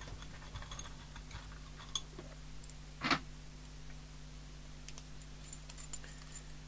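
Small scattered clicks and taps from things being handled on a workbench, with one louder knock about three seconds in, over a steady low hum.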